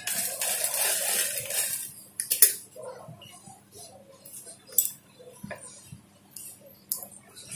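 Industrial sewing machine stitching a seam for about two seconds, then stopping. After that come several sharp metallic clicks and clinks as the fabric is handled and repositioned at the machine.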